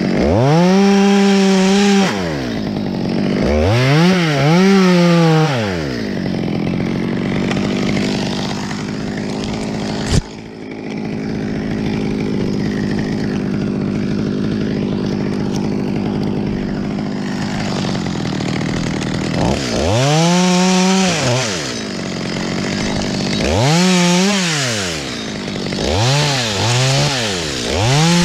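Stihl MS 200T two-stroke top-handle chainsaw revving in short rising-and-falling bursts, with a long stretch of steady idling in the middle while it hangs from the climber's harness. A single sharp snap comes about ten seconds in.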